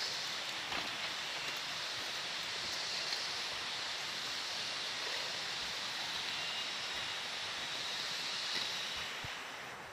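Steady rushing of flowing water from a stream or waterfall, an even hiss without breaks.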